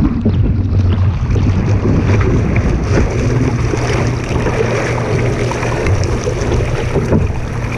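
Wind buffeting the microphone over water splashing and rushing against a small sailboat's hull as it moves. A steady, loud rush with small splashes scattered through it.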